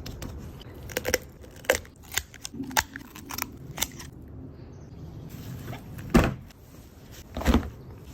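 Raw chicken bones being cut and cracked while spatchcocking: a run of short sharp snips and clicks, then two heavier crunches near the end.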